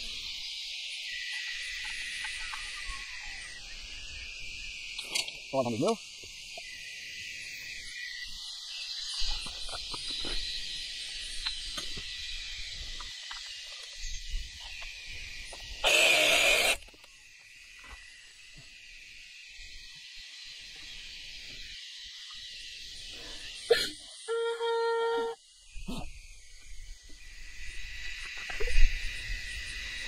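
Cordless saw cutting through orange PVC electrical conduit in one short burst about halfway through, with a second, briefer buzz of the tool later. Insects chirr steadily throughout.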